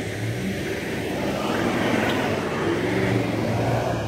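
Four-wheel-drive engines revving hard under load as a tow vehicle drags a ute bogged in soft sand on a recovery strap. It grows louder from about a second in.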